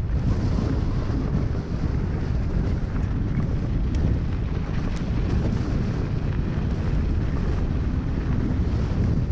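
Wind rushing over the camera microphone at speed, mixed with a mountain bike's knobby tyres rolling fast over loose gravel. A couple of sharp ticks sound near the middle.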